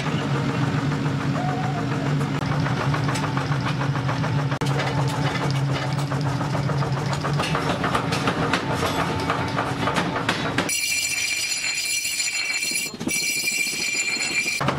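Forge workshop machinery running with a steady motor hum and rapid knocking. After about ten and a half seconds this gives way to the high-pitched whine of steel being ground on an abrasive wheel, which breaks off briefly once.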